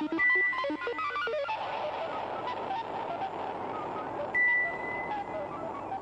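Background music of quick, high, tinkling notes. Two high, steady beep tones cut in over it, one just after the start and one about four seconds in, each lasting about a second; these are the loudest sounds.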